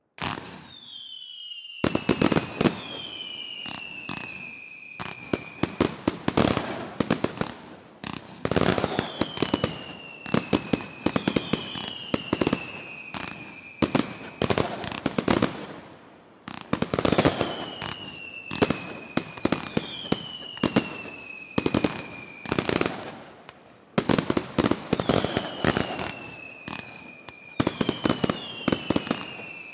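Fireworks display: volleys of sharp bangs and crackling reports, several a second, with repeated whistles that slide down in pitch over about two seconds each.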